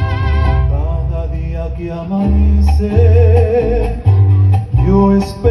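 Mariachi band playing the instrumental introduction of a song. A vibrato trumpet phrase ends about half a second in, then a wavering melody carries on over guitars and a plucked bass.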